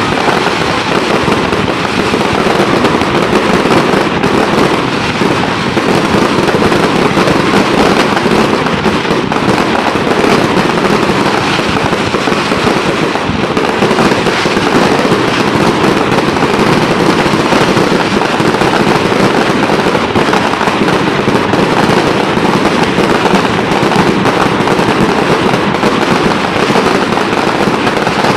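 Fireworks and firecrackers going off in a dense, unbroken rapid-fire crackle of bangs and pops, with no pauses.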